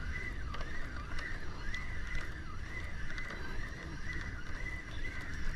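An animal call: a high, wavering call that repeats about twice a second, over a steady low rumble.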